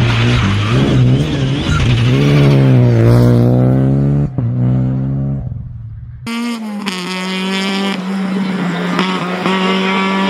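Rally car engine accelerating hard past the trackside, its pitch climbing, with a short break about four seconds in at a gear change, then fading. After an abrupt cut, a second rally car's engine runs at steady high revs through a chicane, dropping slightly in pitch near the end.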